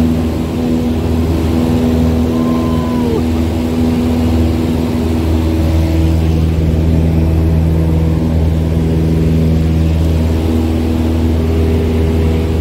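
Piston engine and propeller of a single-engine light aircraft running steadily, heard from inside the cabin.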